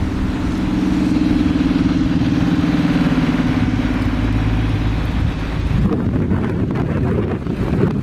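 A bus engine drones steadily as the bus passes slowly on a snowy street, dying away about six seconds in. Wind then buffets the microphone in gusts.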